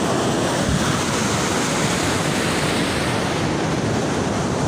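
Surf washing steadily onto a beach, with wind buffeting the microphone.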